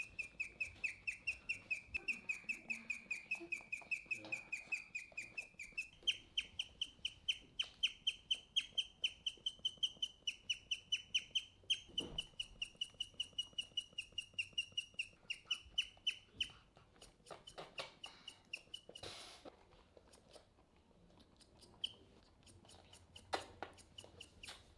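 Guinea pig chirping: a fast, even run of high, bird-like chirps, about four a second, stepping up slightly in pitch about six seconds in and fading out about two-thirds of the way through. A chirp the owner takes to be a reaction to stress. A short burst of noise and a few faint clicks follow.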